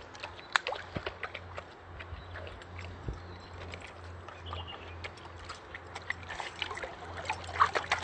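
Lake water sloshing, with scattered small splashes and clicks, over a steady low hum.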